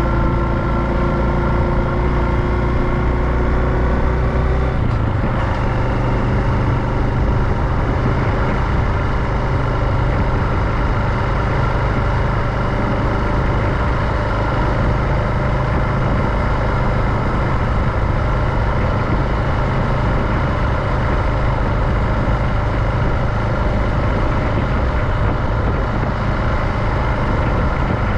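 Honda Super Cub JA59's 110 cc single-cylinder four-stroke engine running under way, over a steady rush of wind and road noise. The engine note rises slightly at first, shifts about five seconds in, then holds steady at cruising speed.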